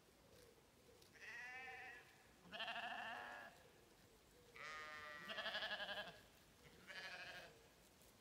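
Zwartbles sheep bleating: a run of four or five quavering bleats with short pauses between them, the middle ones loudest.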